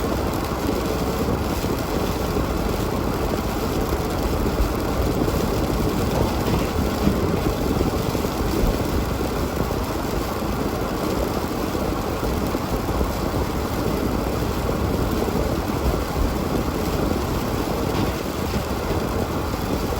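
Steady low rumble of a car on the move, engine and road noise without a break.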